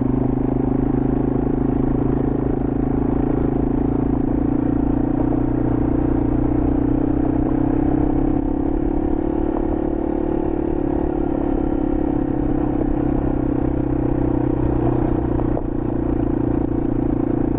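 A 2021 Yamaha TW200's single-cylinder four-stroke engine running at a steady cruise while the bike is ridden, with a brief dip in level near the end.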